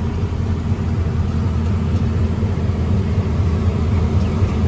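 Truck engine and road noise heard from inside the cab while driving along a highway: a steady low drone.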